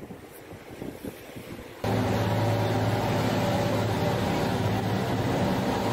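Boat engine running with a steady low hum, starting abruptly about two seconds in; before it, faint wind and surf.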